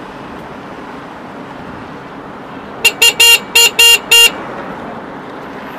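A vehicle horn beeping six times in quick succession, about four short beeps a second, over steady road and wind noise.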